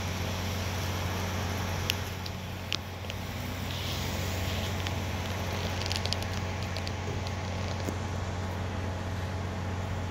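Steady low hum of a vehicle idling in stopped traffic. A few sharp clicks come about two and three seconds in, with a quick cluster of clicks around the middle.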